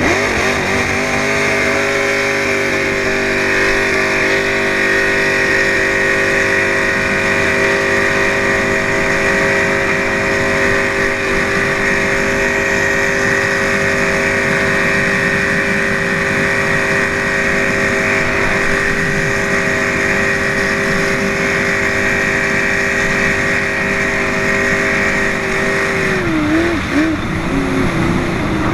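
Jet boat engine running hard at a steady speed, its pitch rising slightly at the start and holding, then wavering and dropping near the end.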